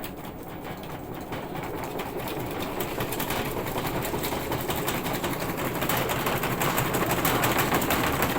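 Washing machine shaking violently in its spin, the cabinet knocking and rattling rapidly and getting steadily louder: a sign of badly out-of-balance spinning.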